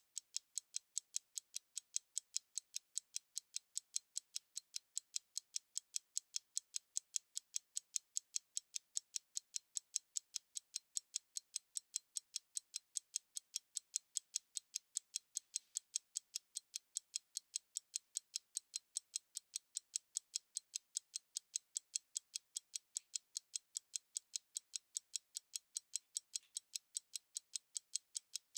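Analog stopwatch ticking: a steady, rapid run of sharp, high clicks, several to the second, evenly spaced and unchanging.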